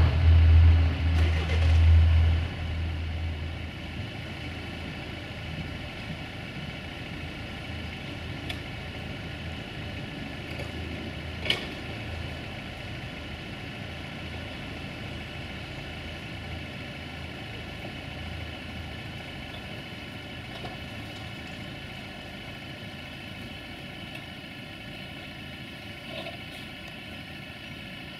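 A heavy low rumble fades away over the first three seconds, leaving a steady engine idle with a sharp click about eleven and a half seconds in.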